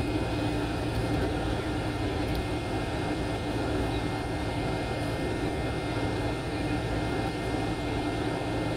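Airliner jet engines running steadily, heard inside the passenger cabin as an even, unchanging rush with a low hum.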